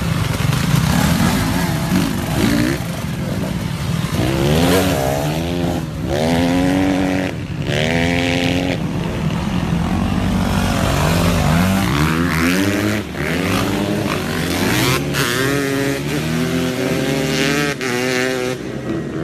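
Dirt bike engine revving hard as it pulls away, its pitch climbing and then dropping again and again as it shifts up through the gears.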